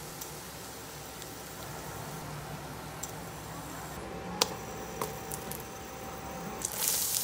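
Hot oil sizzling faintly in a frying pan, a sharp click partway through, then a louder sizzle near the end as butter melts into the hot fat.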